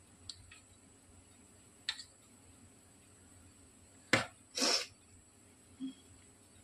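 Metal kitchenware knocking against metal idli mould plates as batter is spooned into the cups: a few light clicks, then a sharp clack about four seconds in, followed at once by a brief scrape and a soft thump.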